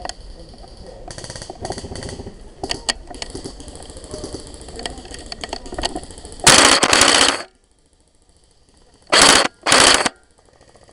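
Tokyo Marui G3 airsoft electric gun firing full-auto bursts right at the microphone: one burst of about a second, then two short bursts a couple of seconds later. Before the first burst, rustling and scattered clicks.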